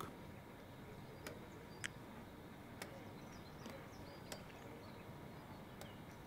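Quiet background ambience with a few faint, scattered ticks and soft high chirps.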